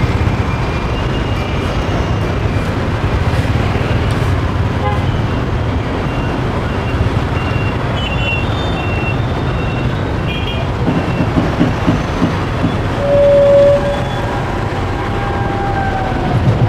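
Street traffic of motorbikes and scooters running past, their engines making a steady low rumble with a run of closer putts near the end. A horn toots once briefly about 13 seconds in.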